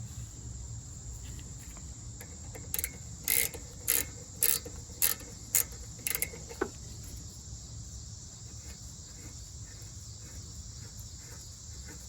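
Ratchet wrench with a 14 mm socket clicking, about seven sharp clicks roughly half a second apart, as it is swung back and forth to loosen the bottom brake caliper slide-pin bolt. Crickets chirr steadily in the background.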